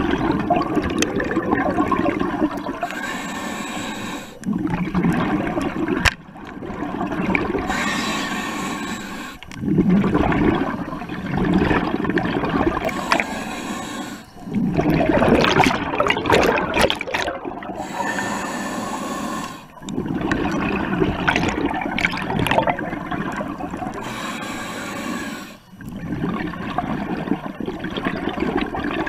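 Scuba diver breathing through a regulator underwater: a hiss on each inhale and a rush of bubbling on each exhale, about five breath cycles, with a few sharp clicks midway.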